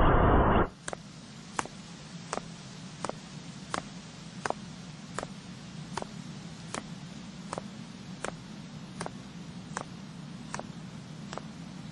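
A loud sound cuts off suddenly just under a second in. Then a sharp tick repeats evenly, a little faster than once a second, over a steady hiss and low hum.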